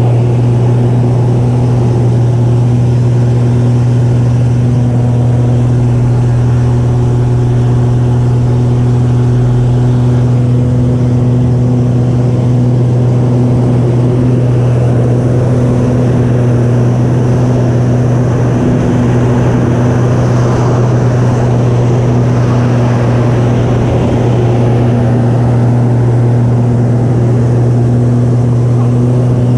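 The Extra 300S's Lycoming six-cylinder engine and propeller droning steadily, heard from inside the cockpit, with the rushing-air hiss growing louder for a while about halfway through.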